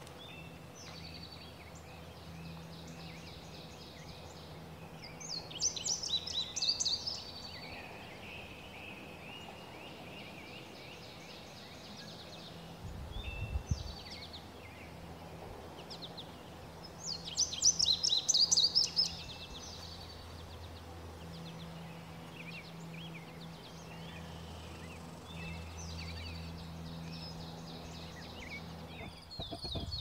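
Indigo bunting singing: two loud songs of quick repeated notes, about eleven seconds apart, over other birds singing faintly.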